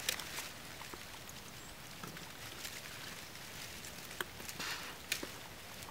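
Dry fallen leaves rustling and crackling as a person kneels and shifts over a downed whitetail deer, with scattered sharp clicks, the loudest a little after four and five seconds in.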